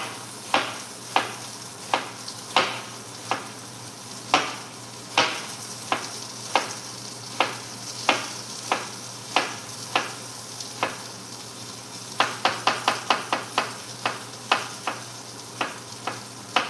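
Chef's knife chopping a head of cabbage on a cutting board: sharp single chops about one every half to one second, with a quick run of about eight chops about twelve seconds in. Under them runs the steady sizzle of pepper strips blistering in hot oil.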